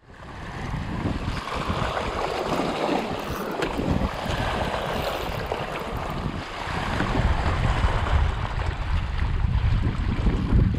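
Small waves washing and foaming over a rocky shoreline, with wind buffeting the microphone. The low rumble of the wind grows heavier about seven seconds in.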